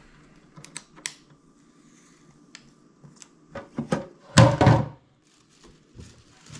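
Plastic housing of a Sunlu FilaDryer S1 filament dryer being handled: a few light clicks, then a louder cluster of knocks and clatter about four seconds in as its clear hinged plastic lid is swung open.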